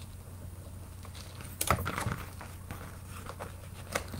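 Handling noise as jewelry and its packaging are picked up and moved: a short burst of rustling and clicks about a second and a half in, and a single click near the end, over a low steady hum.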